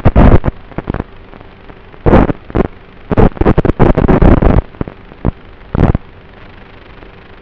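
Gusty wind buffeting a microphone: loud, distorted bursts of rumble come and go irregularly, several in quick succession between about two and five seconds in, over a faint steady hum.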